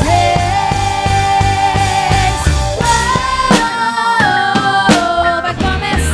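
Full rock-style gospel band playing: drum kit, bass guitar, electric guitar and a long held melody line. The melody steps up in pitch about three seconds in, and the heavy bass and kick drop away soon after, leaving drums and the held notes.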